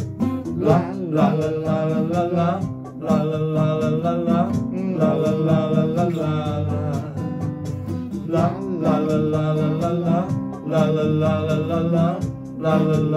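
A man singing into a handheld microphone, holding long notes of a second or two each with short breaks between phrases, over guitar accompaniment.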